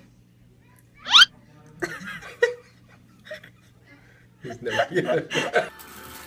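A short, sharp rising squeal about a second in, then a burst of human laughter near the end.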